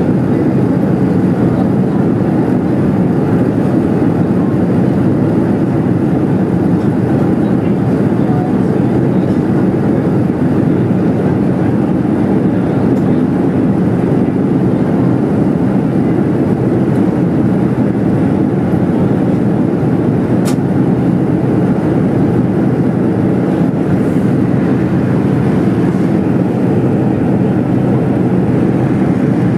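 Steady in-flight cabin noise of a Boeing 787-9 heard at a window seat beside the wing: the even rush of air over the fuselage and the hum of the General Electric GEnx-1B turbofan, unchanging in level.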